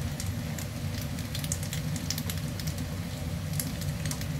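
Pasta and vegetables sizzling in a hot pan, with irregular sharp crackles over a steady low hum.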